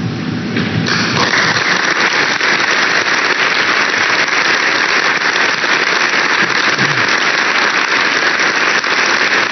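Audience applauding steadily, the clapping swelling in sharply about a second in.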